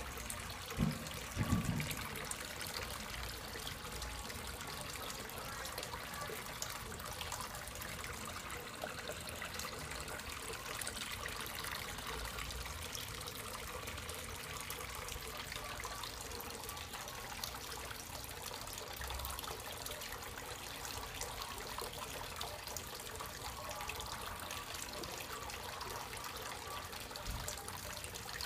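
Water pouring steadily from a pipe into a small pond tub, trickling and splashing on the surface. Two brief low thumps about a second in.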